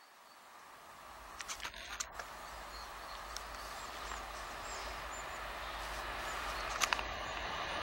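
Two coupled DB Class 425 electric multiple units approaching, running empty: a low rumble and rail noise that grow steadily louder. Birds chirp over it, with a few short sharp chirps or clicks.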